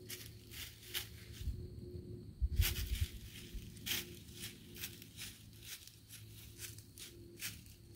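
White-tailed deer walking through dry fallen leaves, each step an irregular crisp crunch, about one or two a second. A brief low rumble about two and a half seconds in is the loudest moment.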